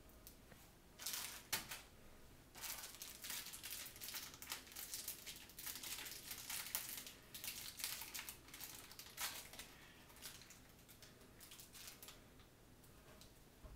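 Crinkly material being handled by hand: irregular bursts of rustling and crinkling from about a second in, thinning out after about ten seconds.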